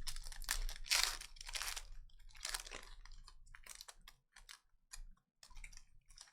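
Stiff trading cards being handled and flipped through one by one: irregular scratchy rustles and light clicks of card stock sliding across card stock.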